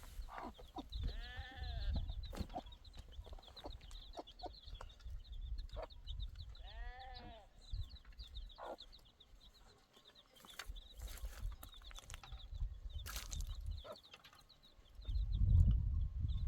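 An animal bleats twice, each call about a second long, with high chirping going on throughout and a low rumble underneath.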